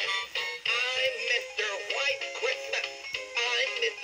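Animated singing snowman toy playing its Christmas song: a voice singing over music.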